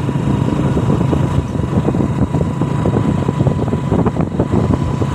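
Vehicle engine running steadily while riding along a paved road, with a rough rushing noise over it.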